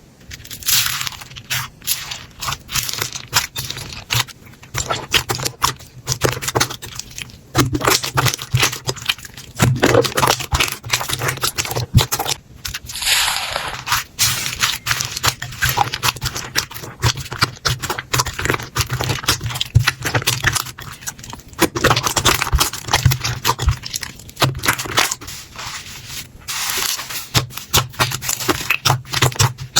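Slime being squeezed and worked by hand, giving a dense, irregular run of crackling, popping clicks.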